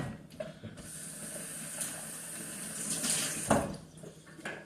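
Water running from a tap into a sink for about three seconds, with a knock as it stops.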